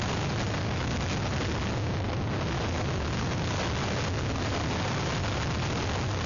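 Hurricane-force wind blowing hard across an outdoor microphone: a continuous rush of noise over a heavy low rumble from the gusts buffeting it.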